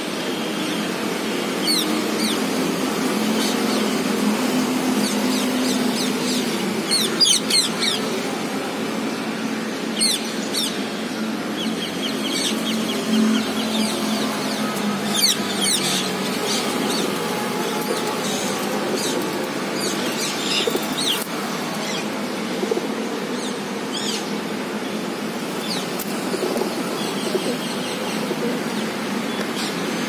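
Rose-ringed parakeets giving short, sharp high calls in scattered bursts, over a steady background hum.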